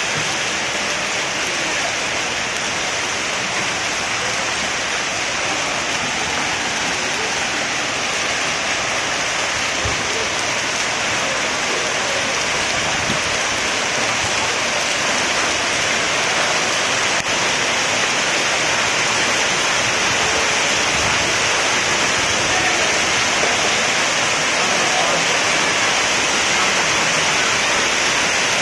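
Hailstorm: hailstones and heavy rain pelting the road and parked vehicles in a dense, steady hiss that grows a little louder in the second half.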